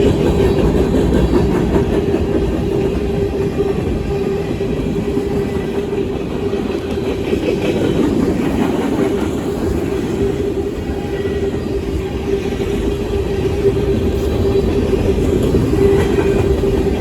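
Freight train rolling past on the rails: a steady, loud rumble with a constant hum-like tone.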